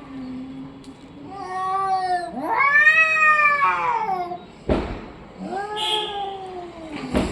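A domestic cat meowing: three drawn-out calls, each rising then falling in pitch, the middle one the longest and loudest. There are two short thumps, one after the long call and one near the end.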